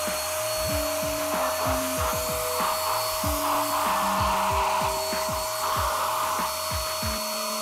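Mollar ESG450 electric paint spray gun's 450-watt motor running at a steady pitch, blowing a strong rush of air from the nozzle.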